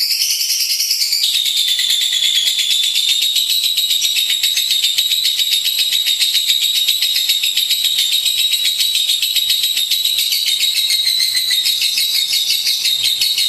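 Lovebird singing a long unbroken stream of rapid, high-pitched chattering notes, dropping slightly in pitch about a second in.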